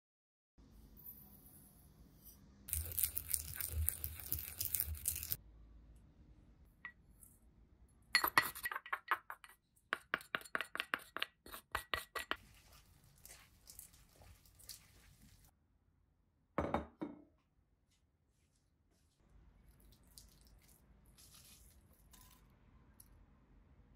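Utensils clinking against a stainless steel mixing bowl as noodles are tossed with sauce: a run of quick metallic clinks, about three a second. Before them come a couple of seconds of rustling, and one more knock comes later.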